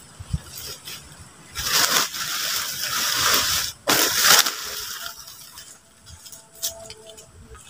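Loud rustling and crunching as a person moves about at a tarp shelter: one long stretch of about two seconds, then a shorter burst just after.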